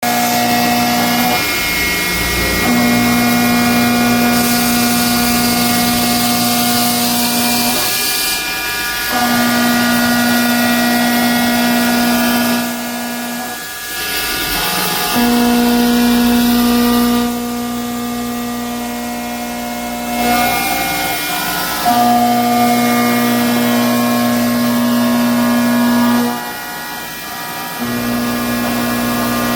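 CNC machine running with a steady whine. The whine stops and restarts every few seconds, and its pitch changes somewhat between runs.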